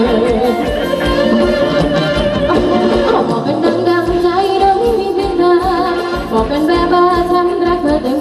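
Live Thai ramwong folk band music: a singer's wavering melody over a steady, regular drum beat.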